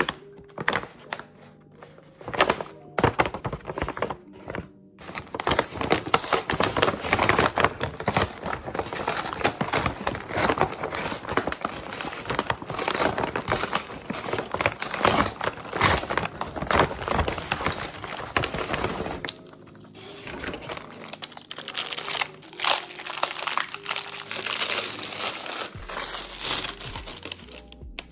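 Packaging crinkling and rustling as parcels are opened by hand. There are a few scattered crackles at first, then a long dense run of crinkling, then shorter bursts near the end.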